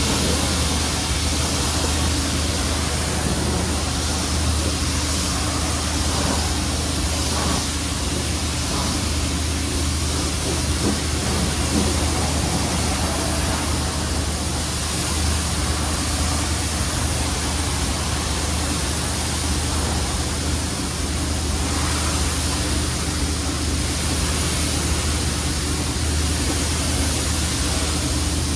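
Steady drone of a car on the move, heard from inside the cabin: a low engine-and-drivetrain hum under an even hiss of road and wind noise.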